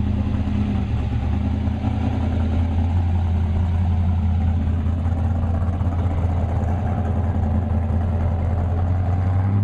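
Chevrolet Chevelle SS V8 engine running with a loud, steady low rumble as the car drives off.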